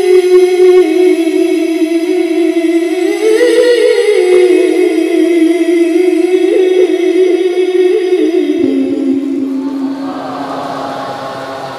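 A male qari's voice in melodic Quran recitation (tilawah), amplified through a microphone. He holds one long note with ornamented turns, lifts higher about three seconds in, then drops to a lower note near the end and fades out.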